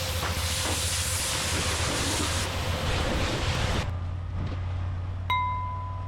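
Pressure washer spraying with a loud hiss over the steady hum of its motor. The spray cuts off suddenly about four seconds in while the motor keeps running, and about a second later there is a sharp click with a short ringing tone.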